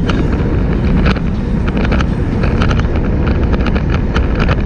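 Steady, loud wind rumble buffeting the microphone of a camera on a moving road bike, riding at speed in a group.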